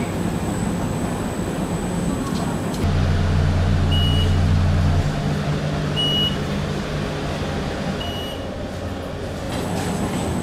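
Alicante TRAM light-rail vehicle running into the underground platform and stopping, with a high steady whine. About three seconds in it gives way to a deep steady hum. Three short high beeps come about two seconds apart while the tram stands with its door buttons lit, the signal that the doors are released.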